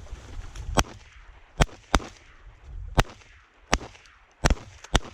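Shotguns firing at ducks: about seven sharp shots in quick, uneven succession, one fainter shot first, some following each other in well under half a second.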